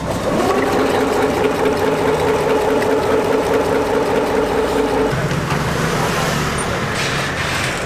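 Stand mixer motor whisking in a steel bowl. Just after it starts, its whine rises in pitch and then holds steady. About five seconds in it changes to a lower hum.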